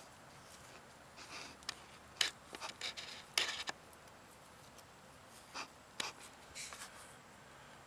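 Close-up scratching and rubbing of hands handling something, heard as scattered short scrapes and clicks in two clusters, one from about a second in and another around six seconds in.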